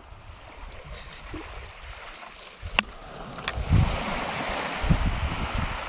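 Surf washing over a pebble beach, building to a steady rush, with gusts of wind buffeting the microphone in the second half and a couple of sharp clicks.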